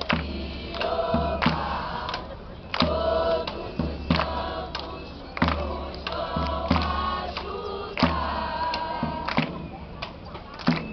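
A group of voices singing together to a steady drum beat, a deep drum stroke about every second and a half with lighter percussion strokes between.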